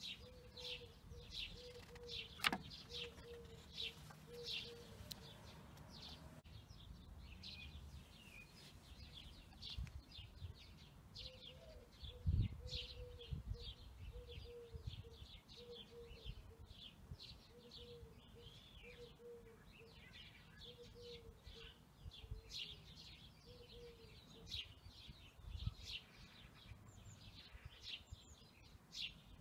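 Small birds chirping over and over, with a low, evenly pulsing series of notes underneath for long stretches and a light low rumble. A sharp click about two and a half seconds in and a dull thump near the middle.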